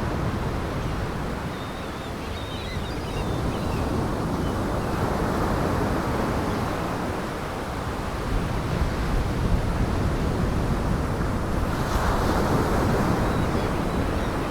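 Heavy surf and gale-force wind: a steady rushing noise with wind buffeting the microphone, swelling about twelve seconds in.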